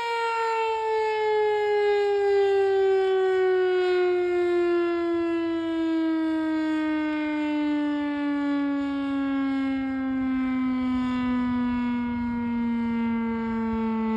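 Federal Signal STH-10A single-tone electromechanical siren winding down, its one tone sliding steadily lower in pitch as the rotor coasts to a stop. A low rumble grows under it near the end.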